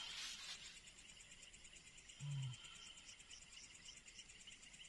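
Faint, steady chorus of night insects, crickets chirping in quick pulses. A short burst of noise at the very start and a brief low hum about two seconds in.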